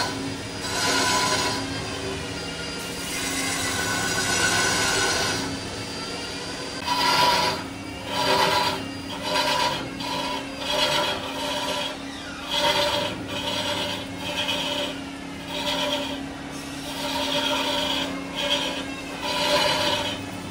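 A large wooden blank spinning on a wood lathe while a cloth-wrapped sanding pad is pressed against it by hand: a rough rubbing, rasping sound over a steady hum. From about a third of the way in, the rasp swells and eases about once a second.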